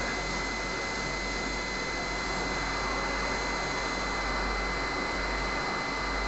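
CNC machine running steadily, a constant motor hum with a thin high whine over an even noise.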